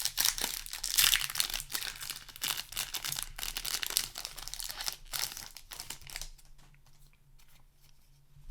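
Plastic foil booster pack wrapper crinkling and tearing as a Magic: The Gathering booster is opened, a dense crackle that dies down to faint handling about six seconds in.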